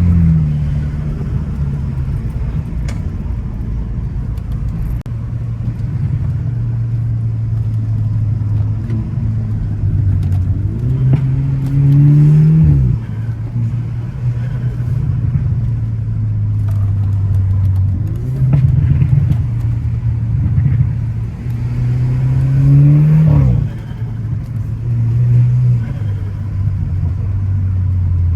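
Car engine pulling hard on a twisty road, mostly holding a steady note, then twice climbing in pitch and dropping off abruptly as the driver shifts or lifts, once a little before halfway and again about five seconds before the end.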